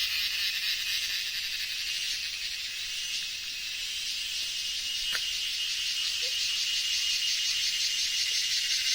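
Dense chorus of forest animals calling at once, a steady high-pitched fast-pulsing buzz, with a single sharp click about five seconds in.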